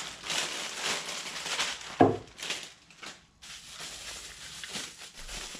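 Clear plastic wrapping crinkling and rustling as it is handled and pulled apart, with one sharp knock about two seconds in.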